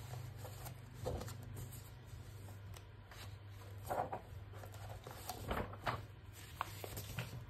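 Pages of an old magazine being turned and handled: a few soft paper rustles and flips, scattered irregularly.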